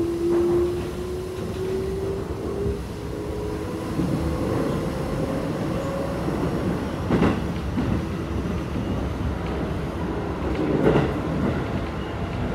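Keikyu 1000 series car's Toyo IGBT-VVVF inverter and traction motors whining, the tone climbing steadily in pitch as the train accelerates and fading out after about three seconds. Under it is steady wheel-and-rail running noise inside the car, with two sharper knocks from the wheels, later on and about four seconds apart.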